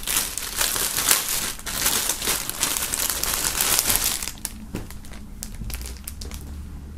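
A thin clear plastic bag crinkling as a folded jersey is pulled out of it and the bag is handled. The crinkling is dense for the first four seconds or so, then dies down to a few faint rustles.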